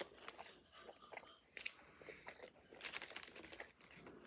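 Faint close-up chewing and crunching of a banh mi on crusty baguette bread: irregular crackles of dry crust, with a couple of louder crunches near the middle.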